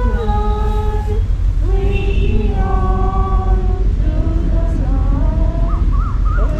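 A group of voices singing a hymn in held notes that step from pitch to pitch, over a steady low rumble.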